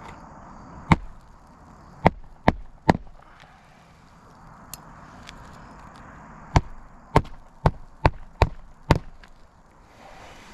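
Roofing hatchet hammering roofing nails through a new shingle: four sharp strikes, a pause of a few seconds, then six quicker strikes in a row.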